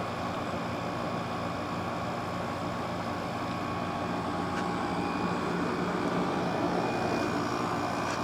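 Everstar window air conditioner running steadily, its compressor and fan giving an even hum with a few steady tones. It runs quiet and without rattling, unusually so for a Fedders-built unit of its era.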